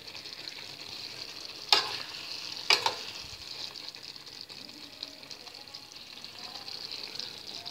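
Broccoli and vegetable stir-fry sizzling steadily in a metal pan as a metal spoon stirs it, with two sharp clinks of the spoon against the pan about two and three seconds in.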